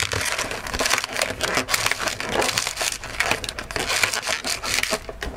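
Inflated latex balloon squeaking and crackling as it is twisted, a pinch twist being divided into two small bubbles, in a dense irregular run of short squeaks and rubs.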